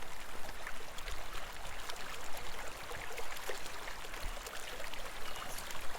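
Running river water sound effect: a steady babble of flowing water with small trickles and drips.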